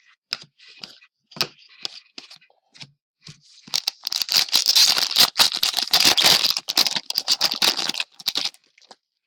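Trading cards handled with a few light clicks and rustles, then about four seconds of dense crinkling and tearing as a card pack's wrapper is ripped open.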